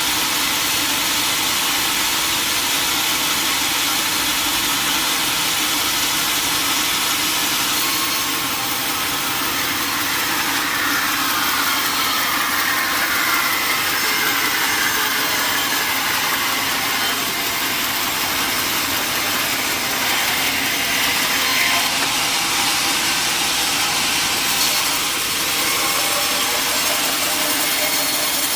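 Sawmill saw machinery running steadily with a constant mechanical drone; from about eight seconds in a brighter, hissier sound joins it, as of a blade working through teak.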